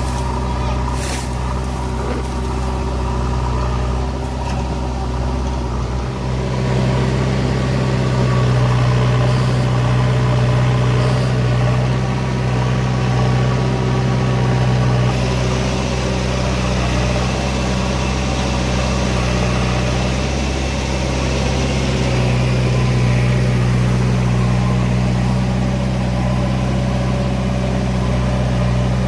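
An engine running steadily at an even speed, a low, unbroken drone.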